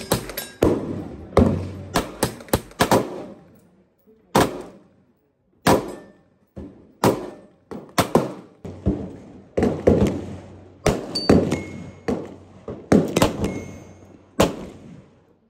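Semi-automatic pistol gunshots: a long, uneven string of sharp reports, about two dozen, some close together and some a second or more apart, each trailing off in a short echo.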